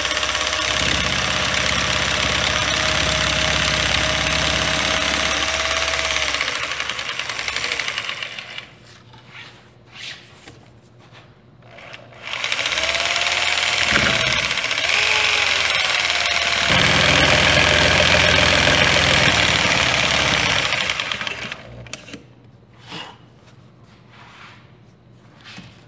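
Corded jigsaw (saber saw) with a reverse-tooth, down-cut blade sawing through a sheet of white paneling. It runs for about eight seconds, stops, starts again about twelve seconds in and runs for about nine seconds, then stops.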